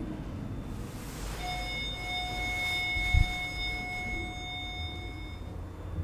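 Glass passenger elevator car running in its shaft with a low rumble. A steady, high ringing tone with several overtones starts about a second and a half in, holds for about four seconds and then stops. A dull thump comes near the middle.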